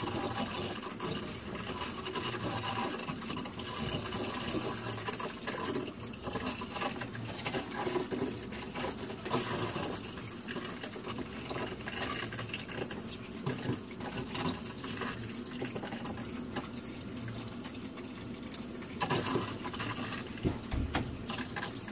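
Water running steadily through a freshly refilled RV hot-water line and tap, after the hot side was drained to splice in a Shark Bite tee; the flow is pushing out trapped air.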